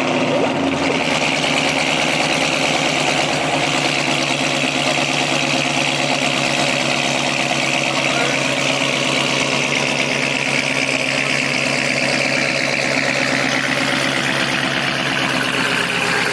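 Dodge Charger Scat Pack's 392 (6.4-litre) Hemi V8 idling steadily through an exhaust with its catalytic converters removed.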